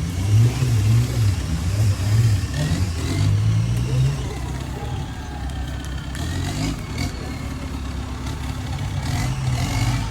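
Off-road 4x4 truck engine revving in surges, then running more evenly after about four seconds.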